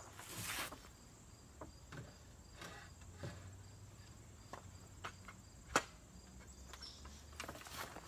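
Faint, evenly pulsed high chirping of insects, with light knocks and a brushing scrape as pine boards are shifted on a plywood table; one sharp knock about three-quarters of the way through is the loudest sound.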